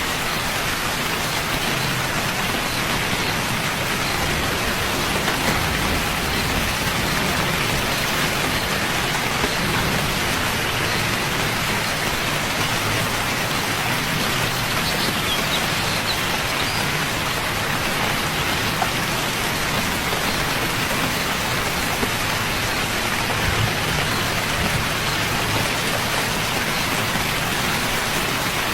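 Steady rain falling, an even, unbroken patter of many drops.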